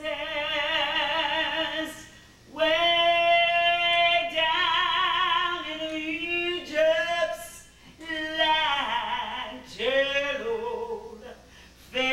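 A woman singing solo and unaccompanied, holding long notes with vibrato, in phrases separated by short pauses for breath.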